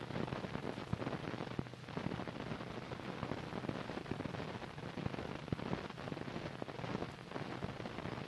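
Steady hiss with dense crackling and popping from an old film soundtrack; no machinery stands out.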